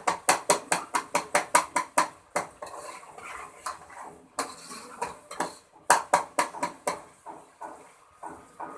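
A stirring utensil knocking and scraping against a cooking pot as keema and tomatoes are stir-fried (bhunai). A quick run of knocks, about five a second, in the first two seconds, sparser strokes after, and another quick run about six seconds in.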